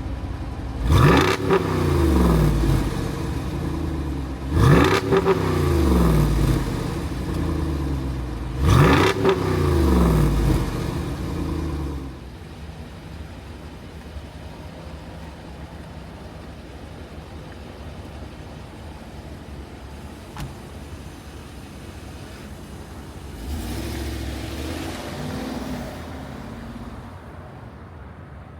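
Jeep Wrangler 392's 6.4-litre Hemi V8 revved three times, about four seconds apart, each rev climbing sharply and falling back. After that it drops to a quieter, steady running sound with a brief light swell near the end.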